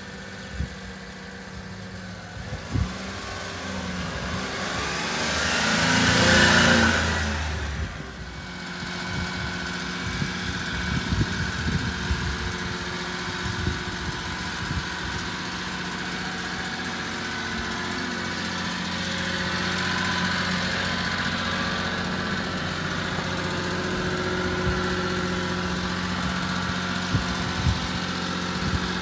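1991 Mitsubishi Minicab kei truck's small three-cylinder engine: the truck drives up, the sound swelling to a peak about six seconds in, then settles into a steady idle.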